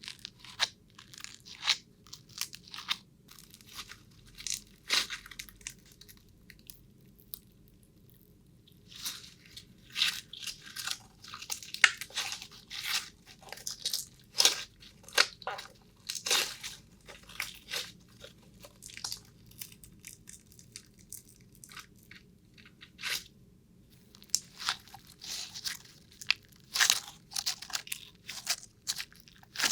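Close-up crunching and crackling: many sharp, irregular crunches in clusters, with a couple of short pauses.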